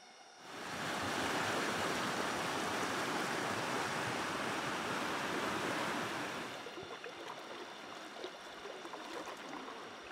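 Jungle stream rushing white over rocks in a small rapid: a loud, even rush of water. About six and a half seconds in it drops to a quieter water sound with small scattered splashes.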